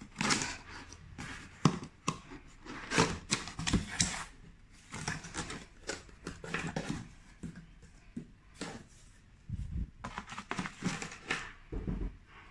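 Hands opening a cardboard box and handling the paper manuals inside: an irregular series of cardboard scrapes, rubs and rustles.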